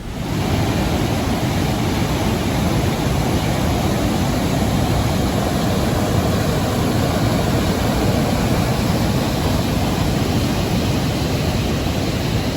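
Waterfall rushing steadily: a loud, even wash of falling water.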